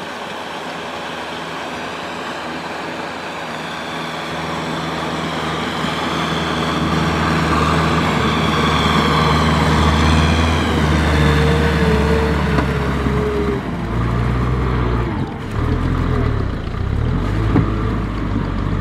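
Farm tractor's diesel engine running steadily under load as it drives a rotary tiller through wet paddy mud, growing louder as it comes closer. The engine note changes about three-quarters of the way through.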